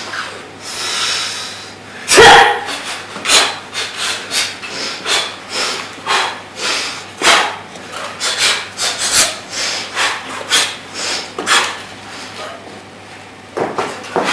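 Movement sounds of a martial artist working through a form with a pair of kama sickles: a quick, irregular string of short swishes and foot scuffs, roughly one or two a second, with the loudest about two seconds in.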